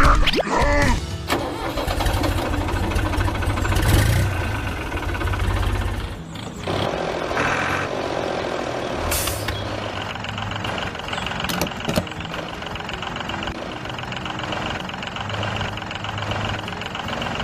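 An engine running, with the sound changing abruptly about six seconds in.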